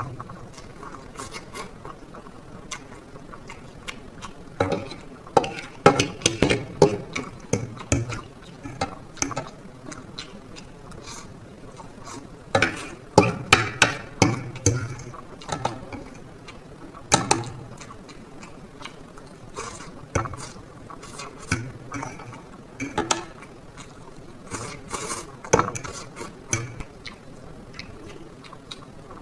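Close-up eating sounds from black bean noodles with a fried egg: clusters of wet chewing and slurping clicks that come in bursts every few seconds, with quieter gaps between them.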